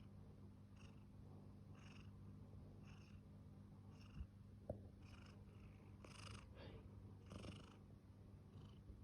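Domestic cat purring faintly and steadily, with a soft breath sound about once a second.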